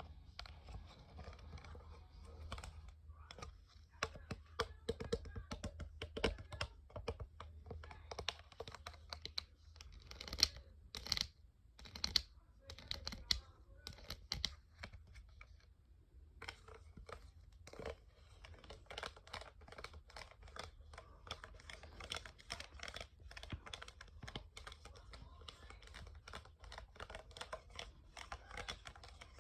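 Rapid, irregular small clicks and taps, with a few louder scratchy bursts near the middle and a brief pause shortly after.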